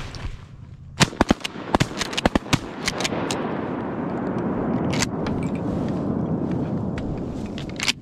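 Shotgun firing at a flock of geese: a quick run of sharp cracks between about one and two and a half seconds in, another loud crack about five seconds in and one near the end, over a dense rushing noise that swells through the second half.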